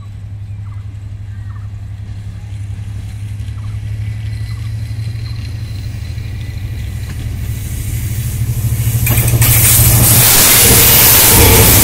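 American-built diesel-electric locomotive approaching, its engine a steady low drone that grows louder, then about nine seconds in a loud rush of wheels on rail as it passes close by.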